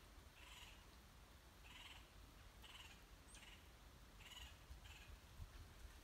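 Faint bird calls in woodland: short, harsh notes repeated at uneven intervals, roughly once a second, over a low rumble.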